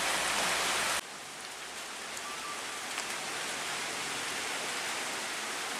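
Heavy rain falling on a wet road, an even steady hiss. About a second in, a louder rush of rain and road noise cuts off abruptly to a quieter rain hiss.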